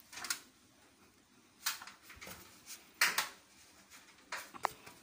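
Aluminium ladder knocking and clanking as it is climbed or handled: several sharp knocks about a second apart, with a brief squeak near the end.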